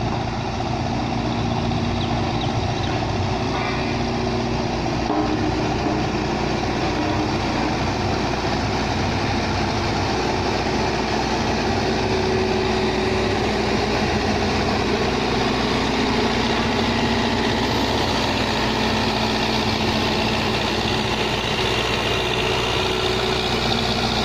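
Case 1107EX road roller's diesel engine running steadily while the roller compacts a road.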